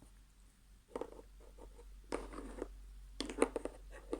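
Slime being squished and pulled apart by hand: three short bursts of sticky, crackly clicking about a second apart.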